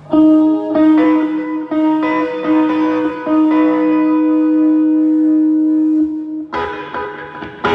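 Electric guitar through an amplifier, a few single notes picked and left to ring, one held for several seconds. About six and a half seconds in, a louder, fuller chord is struck.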